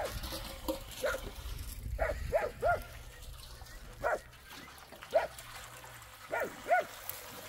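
A dog barking in short, sharp calls, about ten of them at uneven intervals.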